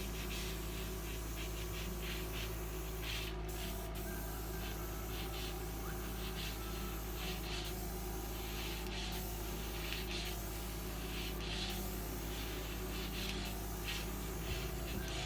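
Repeated short hisses of air blown across wet pour paint, one every second or so, over a steady low hum that stops near the end.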